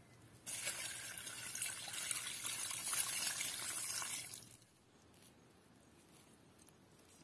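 Water poured out of a stainless steel bowl, splashing onto dry earth and fallen leaves. It starts abruptly about half a second in, runs for about four seconds and dies away.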